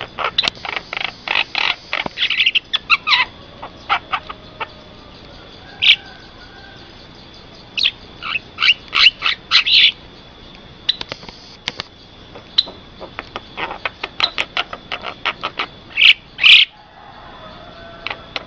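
Javan myna calling: bursts of quick, sharp chattering notes with short pauses between them, and two louder calls near the end.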